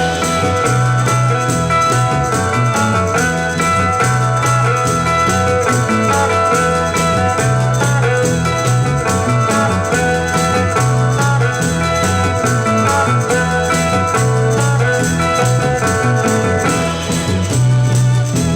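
A 1960s garage rock band recording playing an instrumental passage with no vocals: electric guitar over bass and drums at a steady beat.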